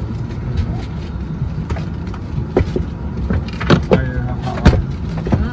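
Steady low machinery rumble with scattered clicks and a few sharper knocks between about three and a half and five seconds in.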